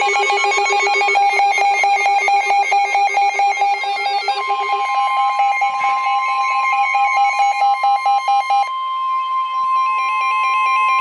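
A rapid, stepping pattern of electronic beeping tones. About four seconds in, the steady, high-pitched NOAA Weather Radio warning alarm tone (about 1050 Hz) joins it and holds on after the beeping thins out near the nine-second mark.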